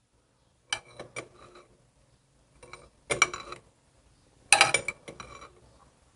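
Short metallic clinks and clicks from a wrench turning the nut of a cam bearing puller, coming in small groups with pauses between them, the loudest about four and a half seconds in. The puller is being drawn up a little at a time to pull the old cam bearing out of a Harley-Davidson Evolution engine case.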